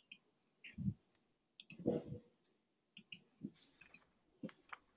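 Faint, irregular clicks from someone working a computer during a lull in an online call, with a couple of soft low sounds about one and two seconds in.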